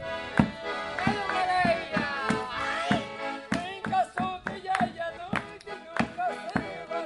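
Two accordions playing a folk tune with a regular drum beat about twice a second, and a man's voice singing over them.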